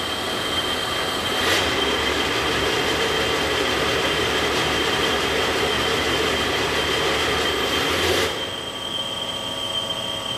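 Brusa LT 200 belt sander running and sanding a cardboard tube fed through it: a steady rushing machine noise with a constant high-pitched whine. About eight seconds in the sanding noise drops a little while the machine runs on.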